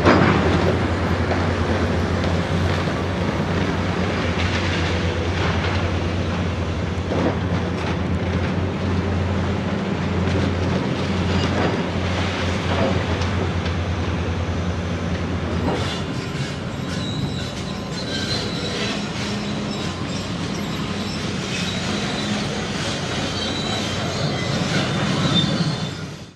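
Heavy demolition machinery at work: a diesel engine runs steadily under repeated clanks, crunches and high metal squeals. About two-thirds of the way through the engine note drops. The sound cuts off abruptly at the end.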